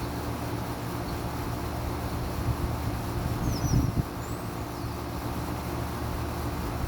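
Carrier Comfort central air conditioner's outdoor condenser unit running, a steady hum from the compressor and fan. A brief low bump comes about halfway through, and a few faint bird chirps are heard around the same time.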